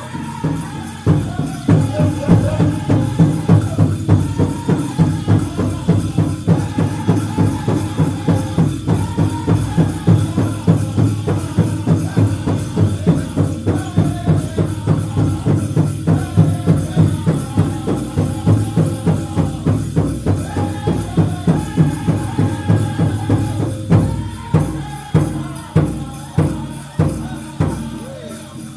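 Powwow drum group singing a chicken dance song over a steady bass drumbeat, about three strokes a second. Near the end the drumbeats spread out into separate, heavier strikes.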